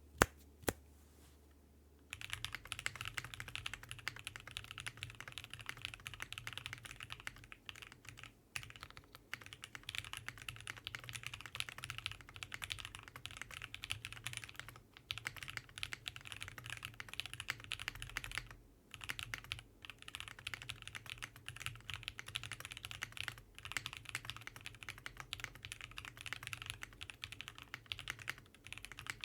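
Typing on a Vega 65% mechanical keyboard with lubed, Tx-filmed Alpaca linear switches and GMK keycaps: a quick, steady stream of keystrokes. After a couple of single clicks at first, continuous typing starts about two seconds in, with a few short pauses.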